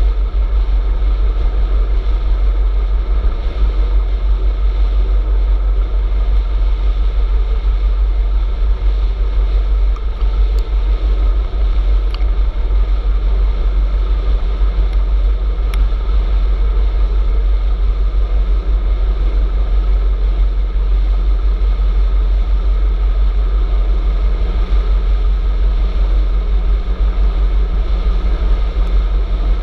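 Steady low rumble of wind buffeting the microphone of a camera riding on an electric bicycle at road speed, with a few faint ticks near the middle.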